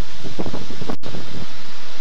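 Storm wind and heavy rain: a loud, steady rush with wind buffeting the microphone, broken by a split-second gap about halfway through.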